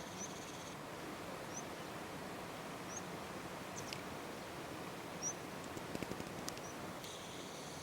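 Quiet outdoor ambience: a steady hiss with a few short, high bird chirps spread through it and some faint clicks just past the middle. A faint high buzz stops just under a second in and comes back near the end.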